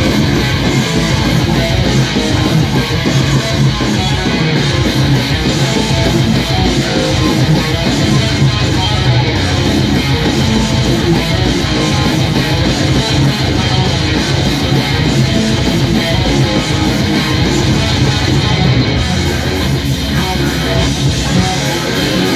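Electric guitar playing a fast heavy-metal shred riff without a break.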